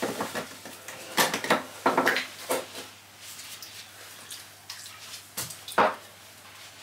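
Small metal carburetor parts clinking and knocking against each other and the workbench as they are handled and wiped clean. The clinks come in several short clusters, the loudest near the end.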